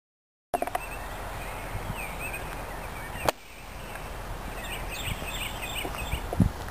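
Outdoor background noise that starts abruptly about half a second in, with short chirps of small birds twice. There is a sharp click about three seconds in and a few soft thumps near the end.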